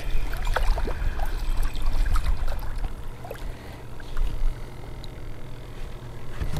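Wind rumbling on the microphone over water lapping at a boat, with a few faint clicks as a spinning reel is cranked and a fish is reeled in.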